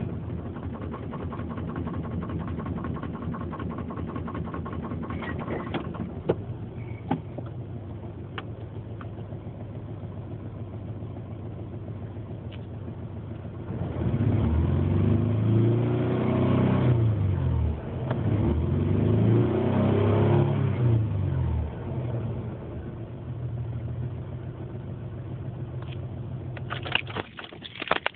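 1993 Ford Explorer's 4.0-litre V6 idling roughly with a misfire, then revved twice, each rev rising and falling over about three seconds, before settling back to idle.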